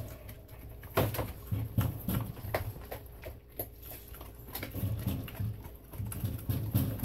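A Carolina Dog chewing and gnawing a large piece of partially frozen raw meat, with irregular sharp crunches and clicks of its teeth.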